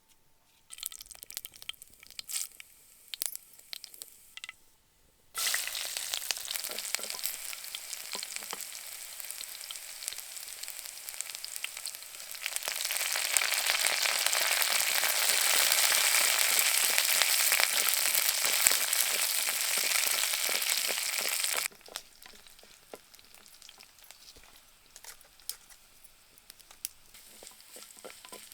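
Food sizzling in hot oil in a pan: the sizzle starts suddenly a few seconds in, grows louder about halfway through, then cuts off abruptly. Scattered clicks and scraping stirring noises come before and after.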